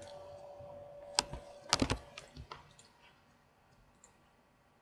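A few sharp clicks of a computer keyboard and mouse, the loudest pair a little under two seconds in, over a faint steady hum that stops about two seconds in.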